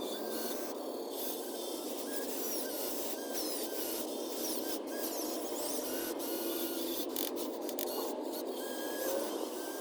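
Steady whirring and rasping of small electric motors and gears in RC construction models at work, with brief high chirps throughout.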